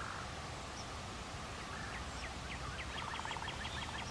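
Steady outdoor background noise; about two seconds in, a bird calls a quick run of short chirps that speeds up to about eight a second.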